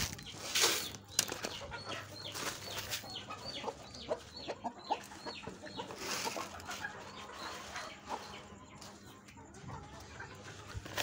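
Native (desi) chickens clucking and calling: a quick run of short, high calls for the first several seconds, then softer, scattered clucks.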